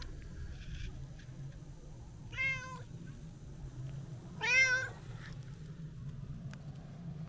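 Brown tabby-and-white cat meowing: the end of one meow right at the start, then two more about two seconds apart, the second the louder.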